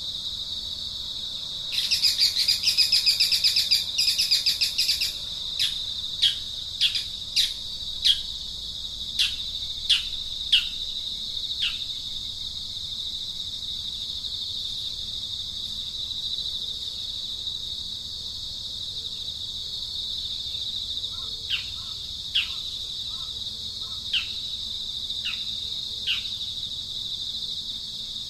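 A steady, shrill insect drone, with a loud rapid buzzing trill for about three seconds near the start. A bird then calls a series of short downward-sliding notes, about one a second, and calls again near the end.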